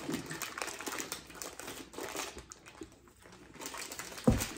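Plastic fruit-snack wrappers crinkling in handling, in scattered short crackles that ease off for a moment past the middle. Near the end comes a single dull thump, the loudest sound here.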